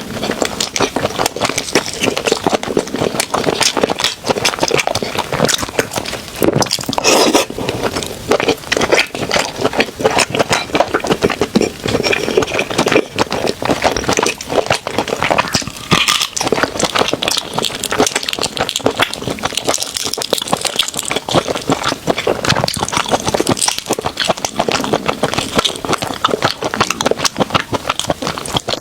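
Close-miked eating sounds from a spicy seafood boil: a dense, continuous crackle of shells and food being handled, bitten and chewed.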